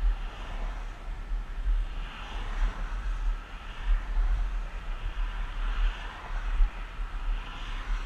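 Wind buffeting the microphone of a moving body-worn camera, an uneven low rumble, over a rushing hiss of wheels rolling on an asphalt path. The hiss swells about every two seconds.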